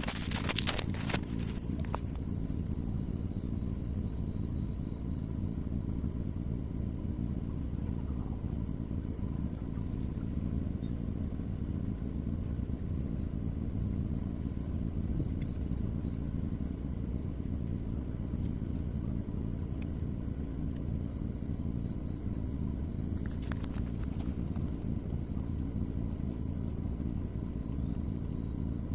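Outdoor ambience: a steady low rumble, with an insect trilling faintly in rapid pulses from about ten seconds in until about twenty-three seconds in. A few clicks at the very start.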